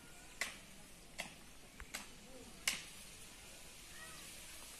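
Four short, sharp clicks about three-quarters of a second apart, the last the loudest, from a fishing rod and its reel being handled.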